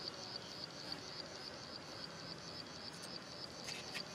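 Insect chirping: a high, steady trill that pulses about three times a second, over the soft scraping of hands smoothing moulding sand. A few sharp clicks come near the end.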